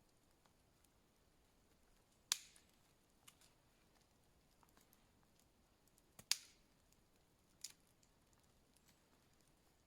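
Near silence broken by a few short, sharp clicks or snaps, the loudest about two seconds in and about six seconds in, with a fainter one shortly after.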